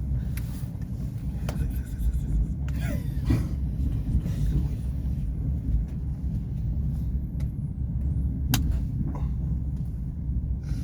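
Steady low rumble inside a passenger train carriage, with a few sharp clicks and knocks scattered through it.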